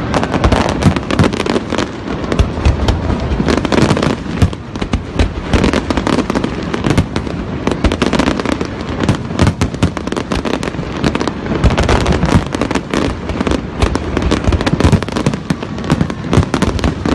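Fireworks show: a dense, continuous barrage of shell bursts and crackling bangs, many pops a second over a constant low rumble.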